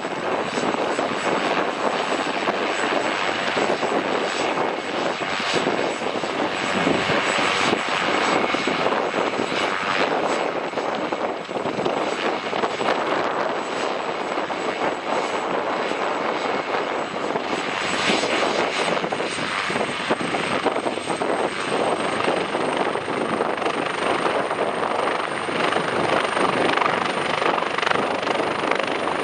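Helicopter running on the ground with its rotor turning: a steady, loud rushing noise with a thin, high turbine whine. Over the last third the whine edges up in pitch as it spools up toward lift-off.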